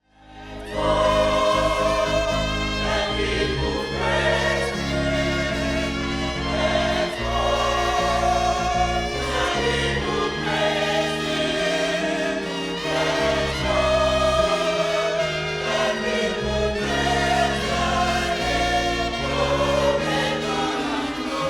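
Gospel choir singing with instrumental accompaniment, held chords over a steady bass, fading in over the first second.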